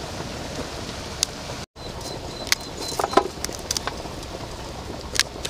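Cauliflower being cut and broken into florets with a knife: scattered crisp snaps and clicks over a steady outdoor hiss, with a short pitched call about three seconds in.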